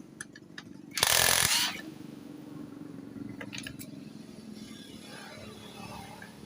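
Tool work on a motorcycle's clutch cover: a few light metallic clicks, then a loud burst of noise about a second in lasting under a second, followed by quieter handling sounds.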